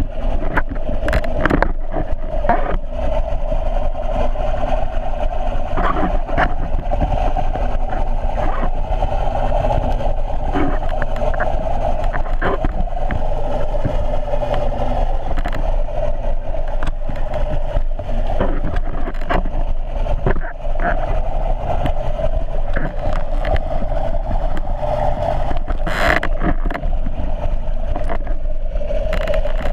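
Underwater sound of being towed through the sea: water rushing over the camera with a steady mid-pitched drone of a boat engine heard through the water, and scattered clicks and knocks throughout.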